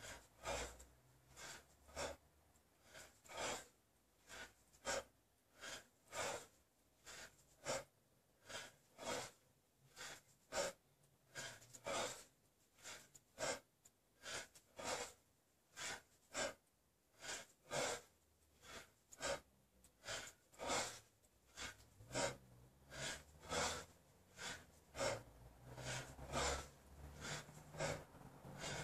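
A man's forceful breathing, short sharp breaths in an even rhythm, more than one a second, with the effort of continuous one-arm kettlebell snatches.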